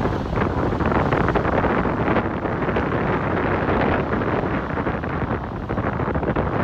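Loud, steady wind noise buffeting the microphone, with sea surf washing on the beach beneath it.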